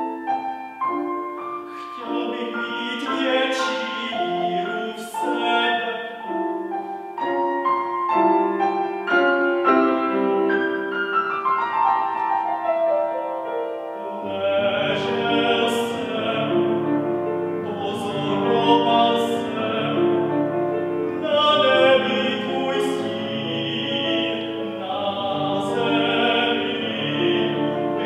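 A classical male voice sings an art song with grand piano accompaniment. Deeper piano bass notes come in about halfway through.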